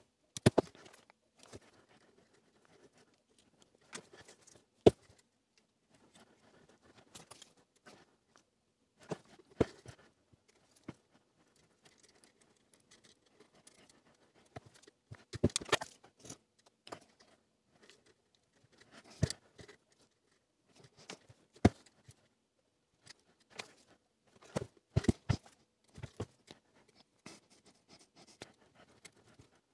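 Small hand tools (pliers, tweezers and side cutters) handling thin wire on an LED cube's soldered frame: scattered short clicks and brief scraping rustles at irregular intervals, with quiet between.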